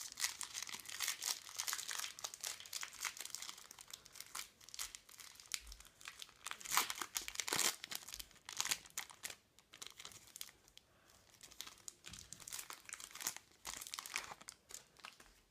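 Foil trading-card packet crinkling and tearing as it is ripped open and the cards are pulled out of the wrapper, with a short lull past the middle.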